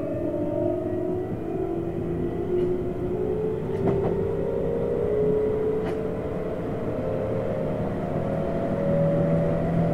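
Tokyu 7700 series commuter train heard from the front car, its traction motors whining with tones that rise steadily in pitch as the train gathers speed, over a running rumble. A couple of faint clicks come about four and six seconds in.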